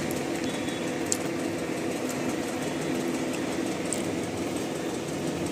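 Steady mechanical hum, as of a fan or motor running, with a faint tick or two.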